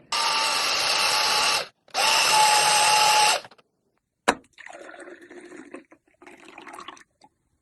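A small electric motor tool runs in two bursts of about a second and a half each, with a short gap between them. Then a single sharp click, followed by fainter, uneven handling noise.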